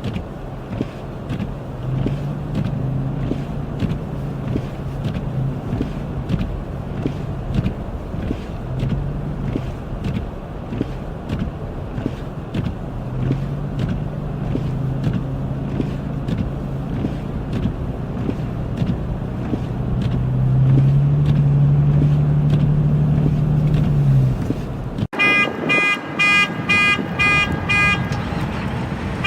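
Motor vehicle engine and road noise with a wavering low drone that swells louder for a few seconds near the end. Then, after an abrupt cut, a car alarm sounds in a steady pulsing rhythm of about two beeps a second.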